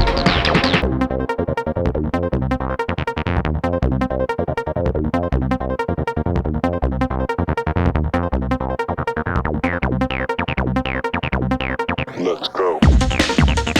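Electronic dance music with a steady pulsing beat; the highs drop away about a second in, a rising sweep builds near the end, and the full beat comes back just before it ends.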